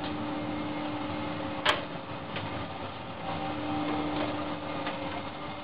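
Steady hum of plant-room machinery with a constant tone. A sharp metallic click comes about a second and a half in, with a few fainter ticks later, as the burner's cover is handled and removed.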